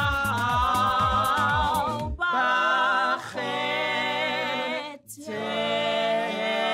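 Small gospel choir of mixed men's and women's voices singing in harmony. A rhythmic beat runs under the voices for the first two seconds, then stops, and the voices carry on unaccompanied in long held chords with a short break about five seconds in.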